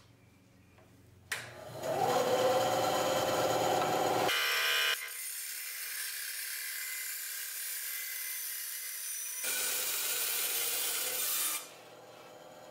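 A vertical band saw starts up about a second in, its motor running up with a short rising whine. The blade then cuts through thin sheet metal with a steady, hissy rasp that is loudest just after start-up, and the cutting stops about a second before the end.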